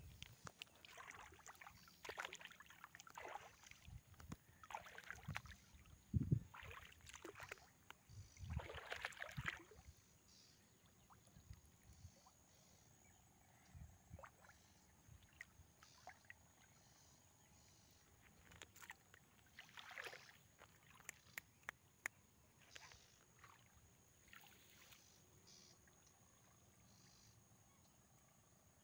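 Faint, irregular swishing and splashing of a stick moving through shallow, weedy water, every second or so in the first ten seconds. After that it is mostly quiet, with a few small ticks.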